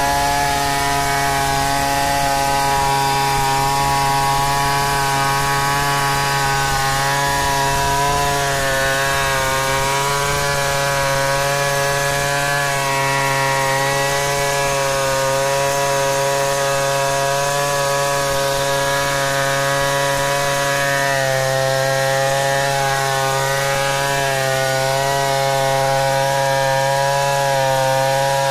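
Stihl 070 two-stroke chainsaw running at full throttle under load, ripping lengthwise along a squared timber. The engine note holds steady with slight wavers in pitch and dips briefly about three-quarters of the way through.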